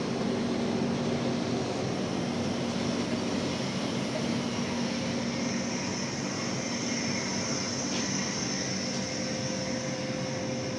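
Steady rumble and rush of a passing express train's coaches and wheels on the rails, heard at close range from the doorway of a train on the adjacent track. A faint high whine comes in about halfway through.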